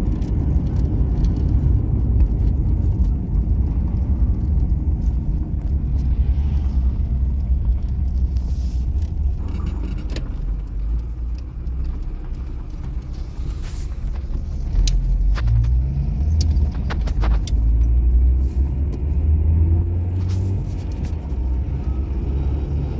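Car driving on the road, heard from inside the cabin: a steady low rumble of engine and tyres, with a few light clicks and rattles in the middle stretch.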